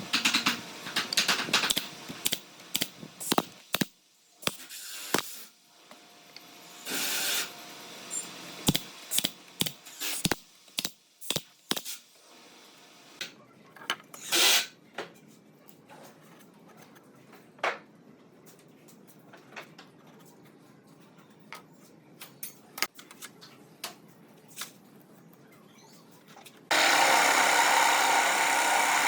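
Workshop tool sounds: a quick run of sharp knocks and taps with a few short bursts of a tool in the first half, then scattered faint clicks. Near the end a machine starts suddenly and runs steadily and loudly.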